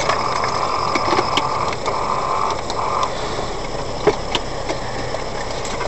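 Steady road and engine noise of a car in motion, as picked up by a dashcam. A steady high tone sounds in three stretches over the first three seconds, and a few faint clicks are heard.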